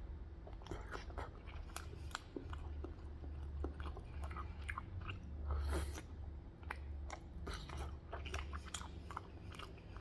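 A person chewing food close to the microphone: irregular soft wet smacks and small clicks of the mouth, with a low steady hum underneath.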